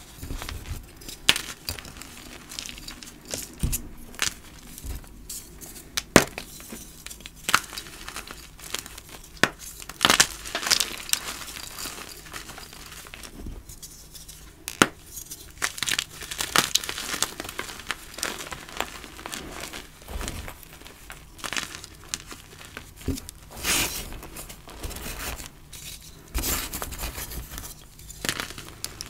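Hands crushing and crumbling blocks of dyed gym chalk. Irregular sharp crunchy snaps come as the chunks break apart, with softer powdery crumbling between them.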